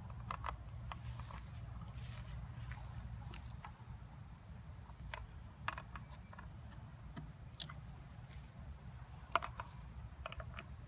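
Scattered light plastic clicks and knocks as a water-bottle rocket's plastic stopper and launch clip are handled and fitted onto the bottle neck, the sharpest about nine seconds in. A steady high-pitched drone and a low rumble run underneath.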